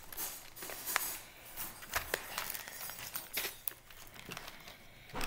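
Clear plastic bag of small plastic gems being handled, its packaging crinkling in irregular rustles and small clicks.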